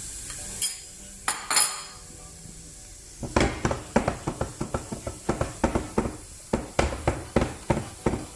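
Wooden spoon knocking and scraping against a non-stick frying pan while scrambling egg. A few separate clicks come first, then from about three seconds in a steady run of knocks, roughly three a second.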